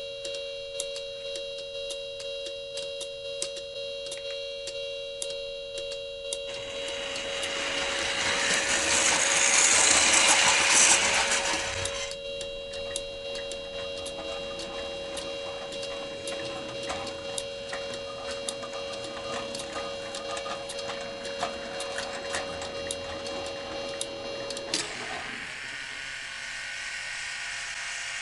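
O-gauge model railroad crossing signal sounding its alarm, a steady tone with regular clicking. A model train's running rumble swells and fades between about 7 and 12 seconds in. The alarm tone stops about 25 seconds in, and a different steady whirring hiss follows.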